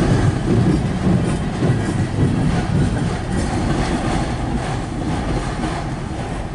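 Freight cars of a CN train rolling past close by: a steady, loud rail rumble with wheels clacking over the rail joints.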